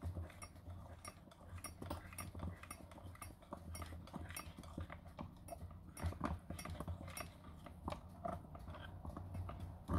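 Electric hand mixer beating flour into batter in a glass bowl: a low steady hum with irregular clicking as the beaters knock against the glass.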